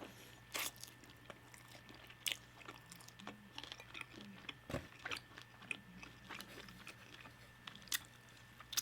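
Close-up biting and chewing of crispy fried chicken wing flats in hot sauce, with scattered short, sharp crunches and mouth clicks.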